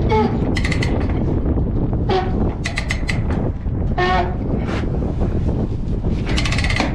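A ratchet chain binder is cranked to tighten a tie-down chain. Each stroke of the handle gives a short squeaky metallic click, several times over a steady low rumble of wind on the microphone.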